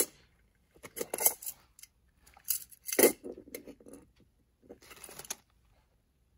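Small metal and plastic items in a tool-chest drawer clinking and rustling as a slim metal tip-cleaner case is picked up and handled. The noise comes in three short bursts of clicks and rattles.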